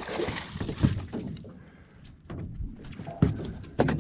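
Water splashing as a hooked catfish is netted at the side of an aluminium boat, then a few knocks and thumps on the aluminium hull, the loudest near the end.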